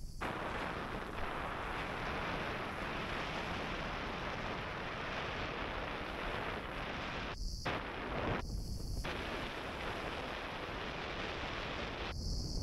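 Steady rushing of wind on a selfie-stick camera's microphone, mixed with skis sliding over groomed snow on a fast ski descent. The rush drops out briefly twice past the middle and again near the end.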